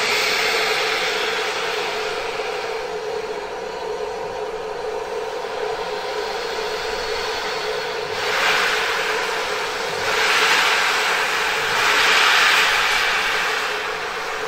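Steam locomotive 35006 P&O Line, a Merchant Navy class Pacific, venting steam with a loud, steady hiss over a constant droning note. The hissing surges louder three times, about 8, 10 and 12 seconds in, as clouds of steam billow from the front end.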